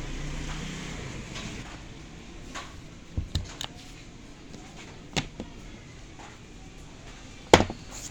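A few separate sharp knocks and clicks over a low background, a quick cluster of three and a single one in the middle, with the loudest knock near the end; no drill motor running.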